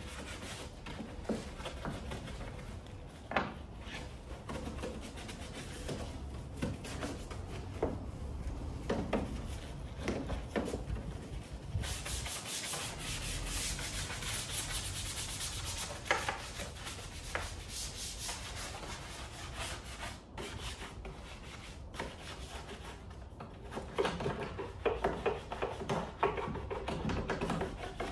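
Detailing brush scrubbing a foam-covered car engine bay: repeated rough rubbing strokes. There is a steady hiss for a few seconds midway, and quicker, louder scrubbing near the end.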